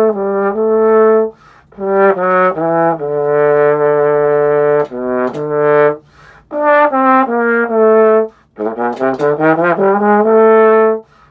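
Unaccompanied trombone playing phrases of held notes broken by short breaths, with a quicker run of short notes about three-quarters of the way through.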